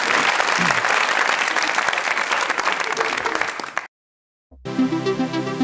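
Studio audience applauding, cut off abruptly a little under four seconds in. After a brief silence, electronic music with a steady beat starts near the end.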